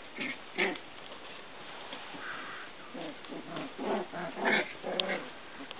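Three-week-old Icelandic sheepdog puppies making short, small vocalizations as they play-wrestle: a couple near the start, then a quick run of them in the second half.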